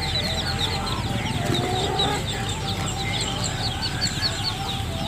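A crowd of caged chicks and ducklings peeping, a dense, unbroken chorus of short high peeps, several a second.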